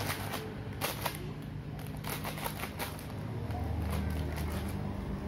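Small plastic snack wrapper crinkling as a child handles it, with rapid irregular crackles through the first three seconds. A low steady hum comes up past the middle.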